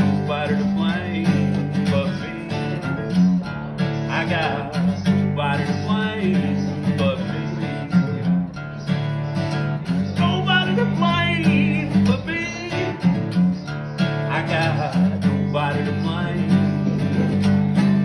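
Acoustic guitar strummed and picked in a steady country rhythm, an instrumental passage between verses of the song.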